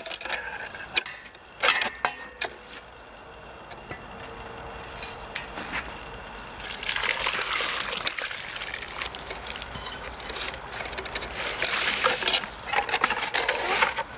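Boiling water poured from a stainless steel pot into and over a wooden birdhouse, splashing through the box onto the snow to scald it clean. A few sharp knocks of the wooden box being handled come in the first couple of seconds. The rush of the pour grows louder from about halfway through.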